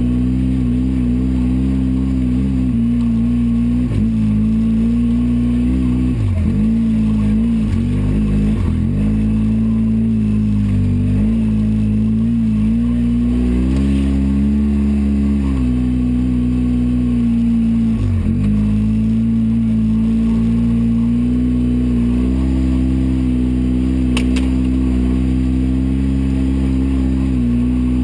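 Polaris RZR 800 side-by-side's twin-cylinder engine running steadily under throttle, heard from inside the cab. Its pitch dips briefly and climbs back a few times, about six, eight and eighteen seconds in.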